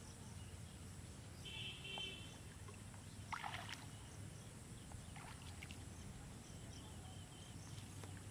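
Faint sloshing of shallow pond water as a fishing net full of fish is hauled in by hand, with a few brief splashes a little past the middle.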